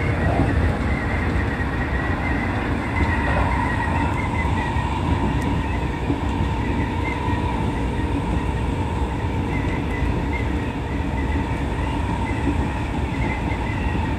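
Seibu 30000 series electric train running along the line, heard from inside the front car: continuous rumble of wheels on rails, with a steady whine joining about three seconds in.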